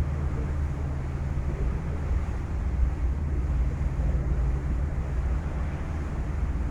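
Staten Island Ferry's engines running with a steady low hum, under a rushing of wind on the microphone.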